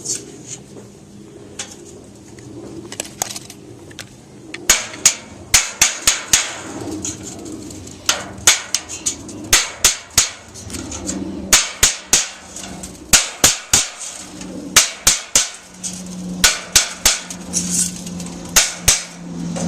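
Hammer blows on sheet-metal chimney flashing being fitted into the brick joint. The sharp strikes come in quick runs of several blows with short pauses, starting about five seconds in. A low steady hum comes in during the second half.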